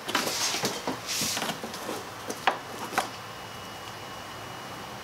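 Gloved hands handling hoses and plastic parts in a car's engine bay: rustling and scraping, then two short sharp clicks about two and a half and three seconds in.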